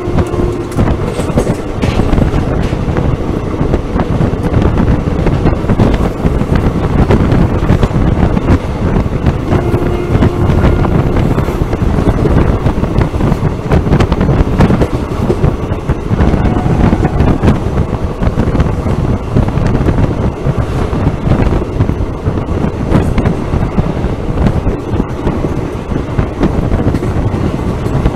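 Express passenger train running at speed, heard from an open coach door: steady wind rush with the rumble and clickety-clack of the wheels on the rails, and a brief horn note about ten seconds in.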